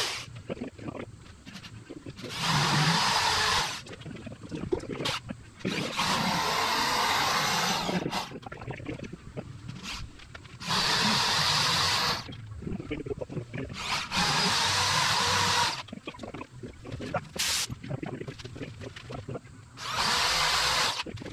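Corded electric drill boring holes through a Perspex (acrylic) windscreen, running in five short bursts of one to two seconds each, with small knocks and handling clicks between the bursts.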